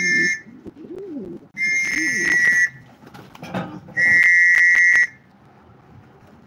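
Hand whistle blown in steady blasts of about a second, repeated every two seconds or so. It is the call a pigeon fancier uses to bring racing pigeons down to the loft as they return.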